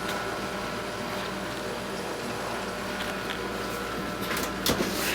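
A steady mechanical hum with a faint high whine running under it. A few light clicks and a sharper knock come about four and a half seconds in.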